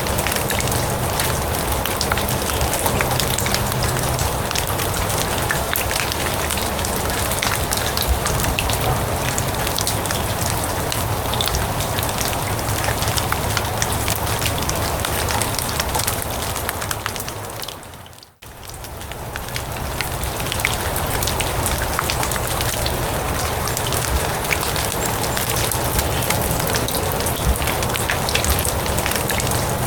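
Steady rain falling on grass and leaves, a dense patter of fine drops. About eighteen seconds in the sound fades down almost to nothing for a moment and then fades back up.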